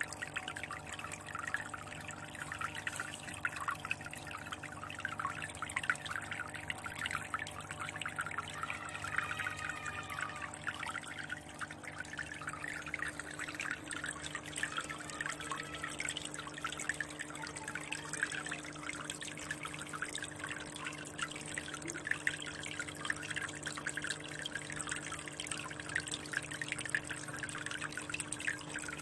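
Aquarium water trickling and splashing steadily, as from a filter or fountain outflow, over a steady low electrical hum.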